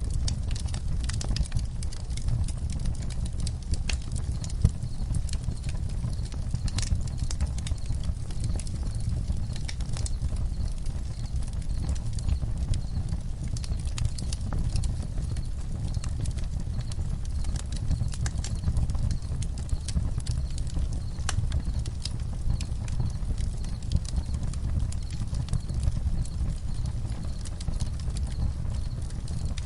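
Campfire burning, wood crackling and popping in irregular sharp snaps over a low steady rumble.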